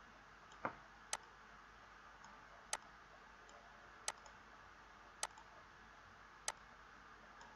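Computer mouse button clicking six times at uneven intervals: short, sharp single clicks over a faint steady hiss.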